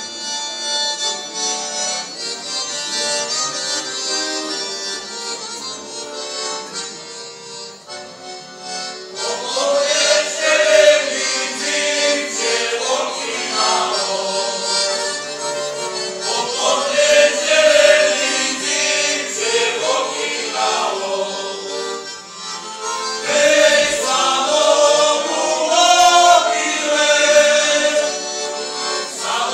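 A piano accordion plays a lead-in alone, then about nine seconds in a male folk choir starts singing in unison with the accordion accompanying. The singing pauses briefly near two-thirds of the way through and picks up again with the next verse.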